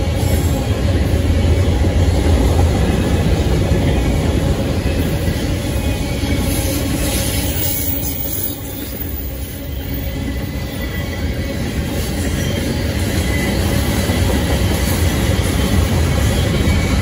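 Freight cars of a long mixed manifest train rolling past close by: a steady rumble of steel wheels on the rails, easing a little in the middle and building again.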